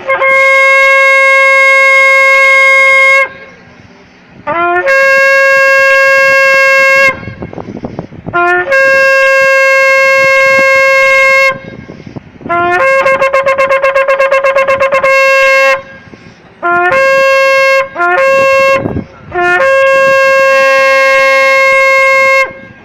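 A shofar blown in a series of about seven loud blasts. Each blast opens on a short low note that leaps up to a held higher note. The long blasts last about three seconds each, the fourth wavers rapidly throughout, and two short blasts come in quick succession just before the final long one.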